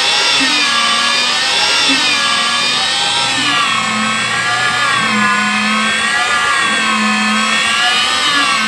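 Electric facing tool of an HDPE butt-fusion machine running. Its whine wavers up and down in pitch as the cutter blades trim the pipe ends square.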